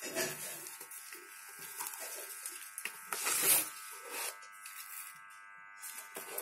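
Paper and cardstock rustling and tapping as the panels and ribbon of a handmade box card are handled, over a steady electrical buzz. The loudest rustle comes about three and a half seconds in.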